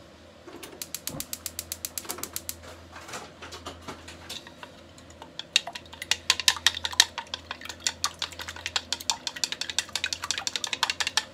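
Chopsticks beating eggs in a bowl: rapid clicking of the sticks against the bowl, several strokes a second, in a short spell near the start and a longer, louder spell from about halfway.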